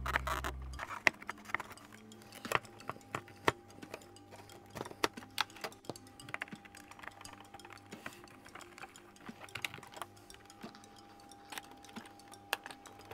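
Irregular light clicks and knocks of the plastic parts of an Electrolux upright vacuum's powerhead being handled and fitted back together by hand, over quiet background music.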